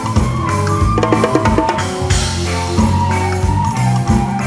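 Live band playing Serbian traditional-inspired music: a drum kit keeps a steady beat under bass and melody instruments, with a quick run of short notes about a second in.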